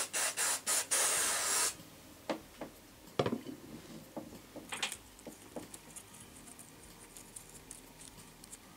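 Fixative spray hissing in a few quick puffs and then one longer spray that stops about a second and a half in, wetting a crocheted cotton petal to stiffen it. Faint clicks and rubbing follow as the damp piece is handled.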